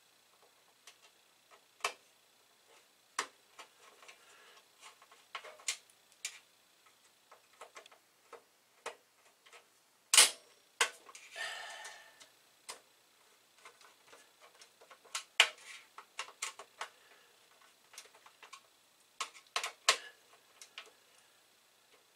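Small screws being fitted by hand into an Amiga 1000's sheet-metal top shield: irregular light metallic clicks and taps. There is a louder clack about ten seconds in with a short scrape after it, and a quick run of clicks near the end.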